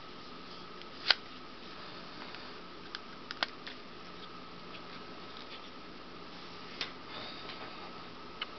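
Sharp plastic clicks and snaps as an HTC Mogul smartphone's back battery cover is unlatched and pulled off and the battery taken out. The loudest click comes about a second in, a quick cluster of clicks follows around three seconds in, then single clicks near seven seconds and near the end, over a steady faint hum.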